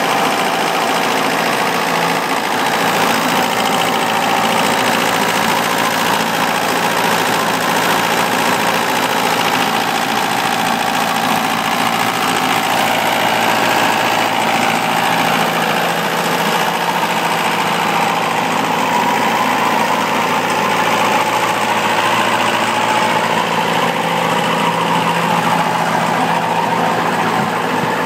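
2004 Bandit stump grinder's engine running steadily at a constant speed.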